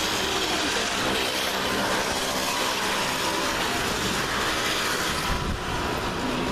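Steady city street noise of motor traffic, an even rushing sound with a faint low engine hum underneath.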